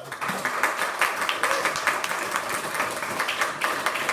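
Audience applauding: dense clapping from many hands that builds up in the first half second and then holds steady.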